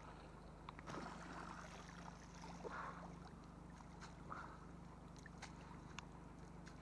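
Faint water and handling sounds as a magnet-fishing rope is hauled in through canal water and weeds, with a few light ticks.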